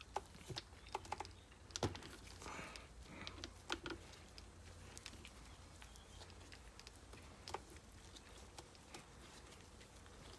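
Faint, scattered clicks and light taps of small greasy metal parts being handled with gloved fingers while an RC car differential is taken apart. The clicks come thickest in the first few seconds and thin out after.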